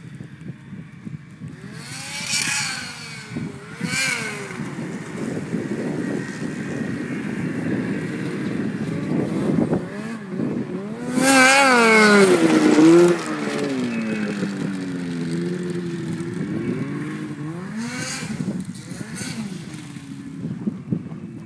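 Turbocharged Ski-Doo Summit 800 snowmobile's two-stroke twin revving up and down as it is ridden around, its pitch repeatedly rising and falling. It is loudest about halfway through, where the revs climb high and then drop, with brief rushing surges of noise in between.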